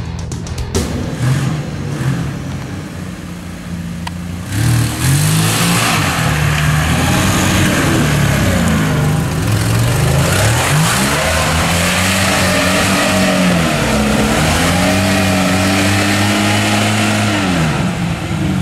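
Lada Niva's engine revving hard under load on a muddy off-road track, its pitch rising and falling again and again. It is faint for the first few seconds and becomes much louder about four and a half seconds in.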